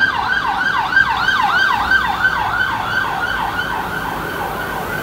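Emergency vehicle siren on a fast yelp: a rapid falling electronic wail that repeats about three to four times a second over street traffic.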